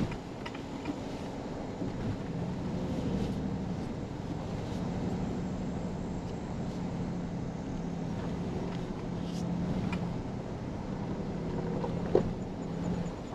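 2023 Toyota Tundra TRD Pro heard from inside the cab while driving slowly on a dirt trail: the twin-turbo V6 drones steadily under the rumble of tyres on gravel. A knock near the start and a sharper, louder one near the end come as the truck goes over bumps.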